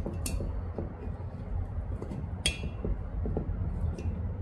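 Small metal-on-metal clinks from a washer, valve spring retainer and split valve keepers being worked into place on a small engine's cylinder head: a sharp clink just after the start, a louder ringing one about halfway through, and a faint one near the end, over a low steady hum.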